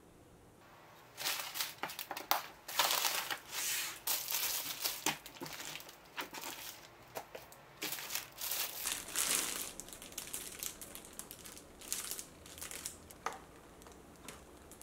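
Plastic grocery bags and wrapping crinkling and rustling in irregular bursts as groceries are unpacked and handled, starting about a second in and thinning out toward the end.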